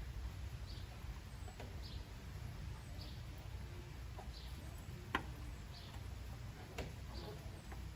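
A bird calling over and over, a short high note about every second and a half, over a steady low rumble. A few sharp clicks and knocks come through, the loudest about five seconds in.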